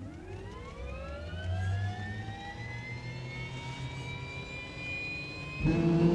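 Jet turbine engine spooling up: a whine climbs steeply and then levels off into a steady high whine over a low rumble. Near the end it cuts abruptly to a louder, steady low-pitched hum.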